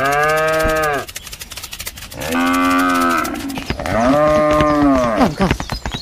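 A cow mooing three times, each a long call that rises and then falls in pitch.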